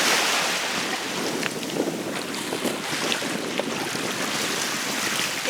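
Sea waves washing in over the shallows, with wind rushing on the microphone; the wash is loudest at the very start, then settles to a steady surge.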